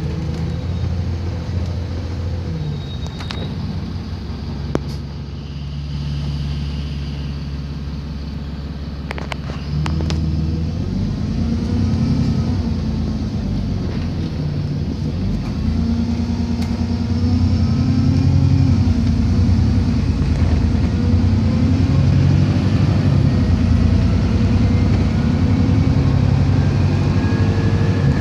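Alexander Dennis Enviro400 double-decker bus heard from inside the lower deck while on the move. The engine hums steadily with a few clicks and rattles, then about ten seconds in it pulls away harder and grows louder, its note rising and falling as it accelerates and changes gear.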